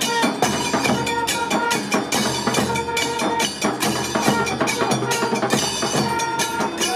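Temple procession music: fast, steady drumming and percussion, with long straight brass horns sounding held notes over it.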